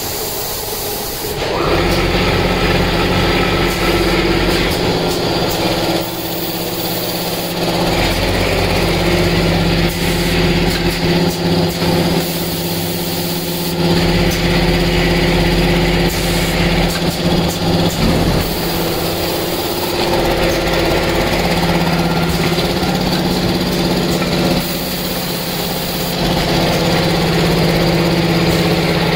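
BSPM-420 automatic powder packing machine and its screw-conveyor feeder running: a steady motor hum that sets in about a second and a half in, with a hiss that comes and goes in a repeating pattern every few seconds as the machine cycles through filling and sealing bags.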